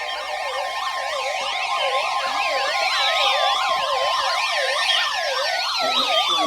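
Several electronic siren-style alert tones sweeping up and down at once over a steady high tone, with a couple of slower falling tones: alerts going off for a flash flood warning.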